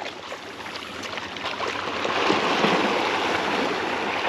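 Water splashing and churning as tarpon crash into a school of mullet near the surface, the spray swelling about two seconds in.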